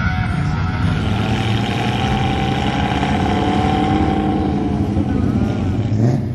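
Car engines driving past on a road: one engine note rises and falls as it goes by, and a louder engine passes close near the end.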